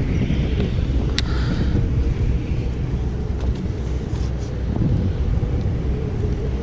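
Wind buffeting the microphone, a steady low rumble, with a sharp click about a second in.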